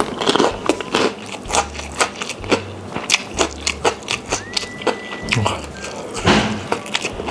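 Close-miked chewing of a spicy rice dish eaten by hand: irregular wet smacking and clicking mouth sounds, a few a second. A brief steady high tone sounds about two-thirds of the way through.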